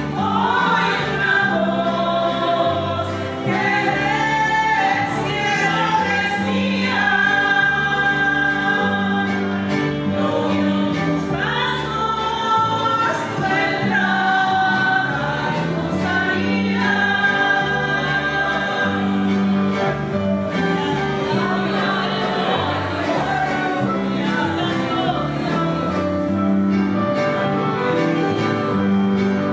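A women's vocal group singing a Christian hymn in Spanish in harmony over an instrumental accompaniment with a steady bass line. Near the end the voices stop and the accompaniment carries on.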